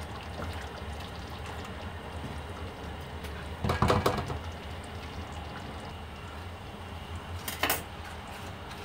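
Thick curry gravy bubbling at a simmer in a non-stick pan over a steady low hum, with a wooden spoon clattering against the pan about four seconds in and a sharp knock near the end as the spoon is set down.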